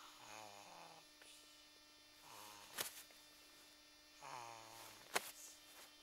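Three short wordless sounds from a low human voice, each falling in pitch, with two sharp clicks, the second of them the loudest thing here. A faint steady electrical hum runs underneath.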